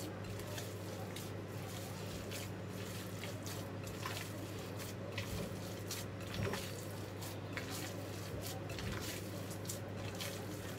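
Hands kneading a wet ground beef and pork mixture with egg and water: soft, irregular squelching over a steady low hum.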